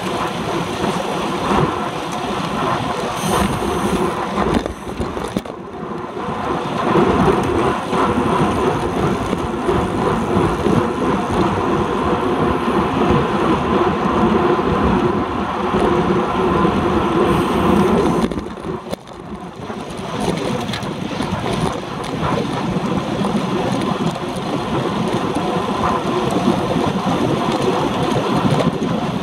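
Wind rushing and buffeting over the microphone of a handlebar-mounted action camera on a road bike riding at race speed, mixed with road noise. The rush eases briefly twice, about a fifth of the way in and again about two-thirds of the way through.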